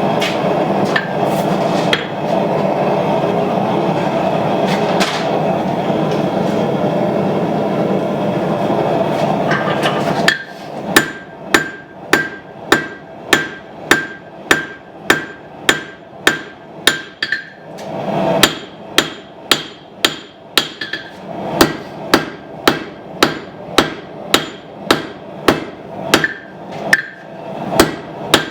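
A forge running with a steady rushing noise for about ten seconds. Then a hand hammer strikes hot steel on the anvil about twice a second, each blow ringing, as the knife's tang is drawn out by hand. The hammering pauses briefly twice.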